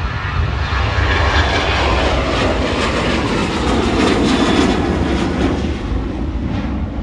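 Jet airliner engines at takeoff thrust on the takeoff roll, growing louder to a crackling peak about four seconds in, then easing off as the aircraft passes.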